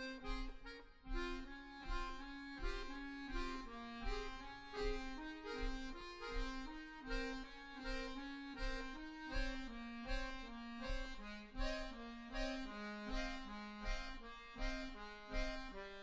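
Two accordions (bayans) playing a driving, steadily pulsing passage of repeated reed notes and chords, each beat sharply accented.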